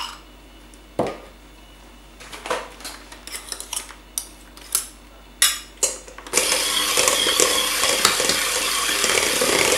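Scattered clinks of metal against a stainless steel mixing bowl. About six seconds in, an electric hand mixer switches on and runs steadily, its beaters whirring through mascarpone and egg yolks in the steel bowl.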